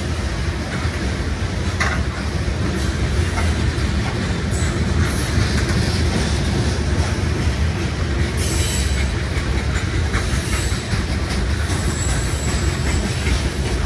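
Freight train of open-top cars rolling past: a steady rumble and rattle of steel wheels on rail. From about halfway through, faint high wheel squeals come and go.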